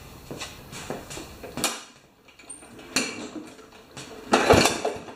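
Scattered clatter and knocks of objects being handled, with a sharp knock about a third of the way through and a louder clattering clank near the end.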